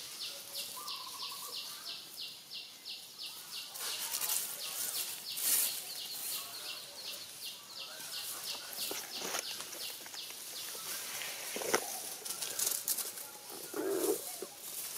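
Insects chirping in a steady high pulse of about six a second. From about four seconds in, dry fallen leaves crackle and rustle as macaques move over them, with a couple of sharper sounds near the end.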